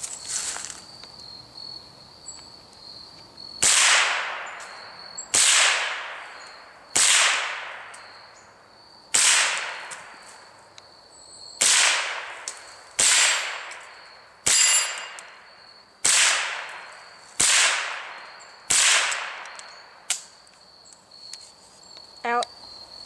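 Ruger 10/22 semi-automatic .22 LR rifle fired about eleven times at a slow, unhurried pace, each shot a sharp crack with a short fading tail. Crickets chirp steadily underneath.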